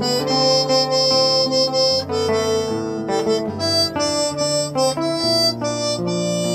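Harmonica playing a song melody of held notes that change every half second or so, over a backing accompaniment with acoustic guitar and sustained low notes.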